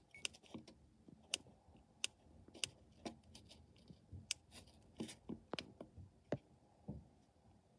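Sparse, irregular light clicks and taps from handling a small camera and pressing its buttons, about fifteen over several seconds, with little else between them.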